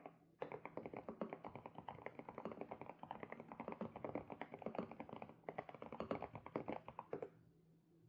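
Fast typing on an SPM PL108W mechanical keyboard with Sunset switches: a dense run of rapid keystrokes that pauses briefly at the start and stops about seven seconds in.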